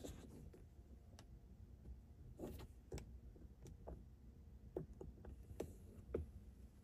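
Quiet background with a series of light clicks and taps, about eight of them at irregular intervals.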